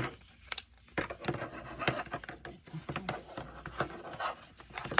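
Magnetic shape-shifting puzzle cube being folded and twisted by hand: its pieces click and snap together irregularly, with light handling rustle.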